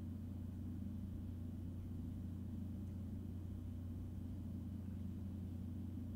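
Steady low hum with faint hiss: background room tone and nothing else.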